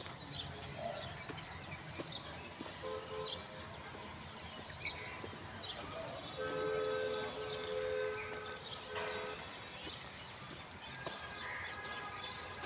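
A horn sounds several long, steady blasts, the longest about two seconds, with short high chirps above them.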